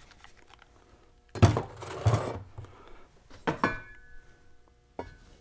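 Aluminium Muncie transmission housings being handled on a steel workbench: a heavy clunk with a short scrape about a second and a half in, then two lighter knocks of metal set down on metal.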